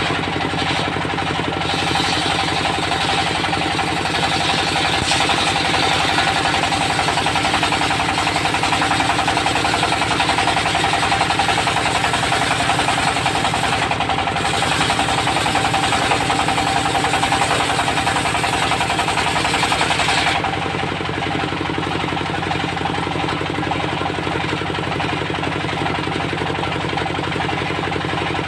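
Diesel-powered circular saw bench running steadily while its blade cuts through teak. The cutting noise stops suddenly about twenty seconds in, and the engine and spinning blade run on.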